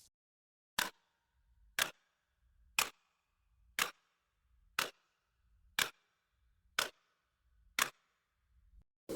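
A slow clock ticking, eight sharp ticks about one a second, each with faint low knocks between.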